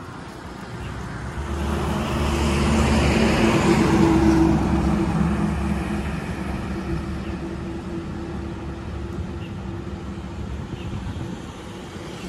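A motor vehicle passing close by on a highway: engine and tyre noise swell to a peak a few seconds in and then fade away, over steady traffic noise.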